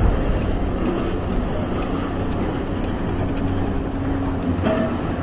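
Heavy diesel construction machinery running steadily, a low engine drone with a faint regular ticking about twice a second.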